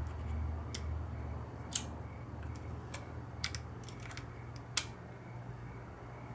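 Irregular sharp clicks and light metallic taps of hand tools and parts being handled while a front axle knuckle is put back together, two of them louder, over a low steady hum.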